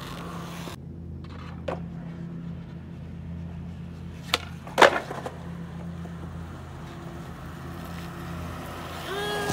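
Skateboard jumping down a small concrete stair set: two sharp clacks about half a second apart, the second and louder one the board landing. A lighter knock comes earlier, and a short pitched sound near the end.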